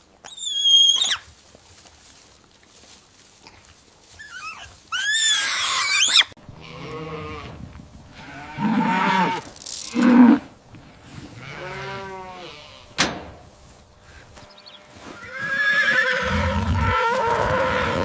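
Farm animals calling one after another, several different calls in turn: a short high call, a high rising call, a few shorter arched calls, and near the end a long call over a low rumble.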